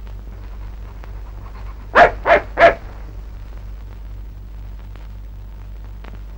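A dog barking three times in quick succession, over the steady low hum of an old film soundtrack.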